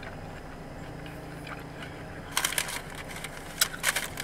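Food wrapper rustling and crinkling in two short clusters, over the steady low hum of an idling car.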